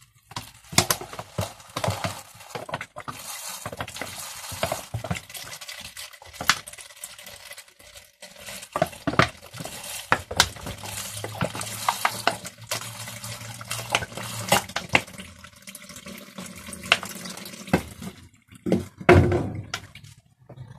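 Water poured from a plastic bottle over loose steel pedal ball bearings in a rag in a plastic tub, splashing and hissing in stretches, with many small clicks and clinks. A louder knock near the end.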